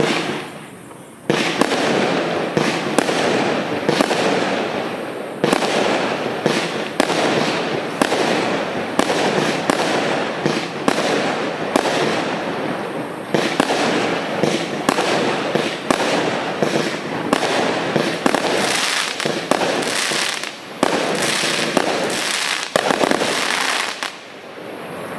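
Consumer multi-shot firework cake (FC2025) firing, a rapid string of shots and bursts going off one after another. It starts about a second in and runs on for over twenty seconds before dying down near the end.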